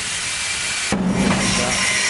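A single sharp knock about a second in, with a short low ring after it, against steady workshop background noise.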